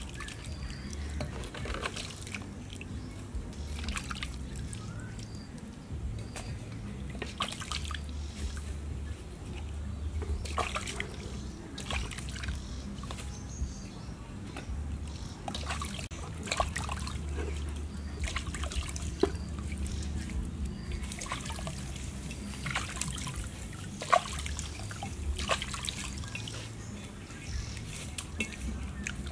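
Water splashing and trickling in a stainless steel bowl as sweet potatoes are washed by hand, rubbed under the water and lifted out so water runs off them back into the bowl. Irregular splashes and drips throughout, with one sharper splash or knock later on.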